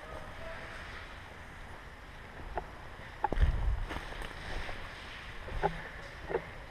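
Scattered single pops from airsoft guns firing, about six sharp shots spread irregularly over several seconds, against a steady noisy background. A low rumble about three seconds in comes from wind buffeting or handling of the microphone.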